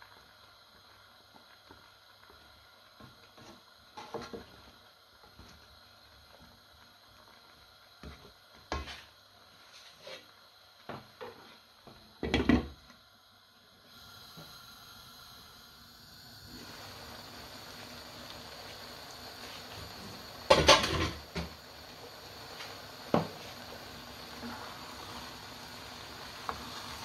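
A spatula stirs vegetables in a non-stick wok, with scattered scrapes and knocks against the pan, the loudest about twelve seconds in. From about fourteen seconds there is a steady hiss as the covered vegetables cook in their own steam with no oil. A loud clatter comes about twenty-one seconds in, and a single knock about two seconds later.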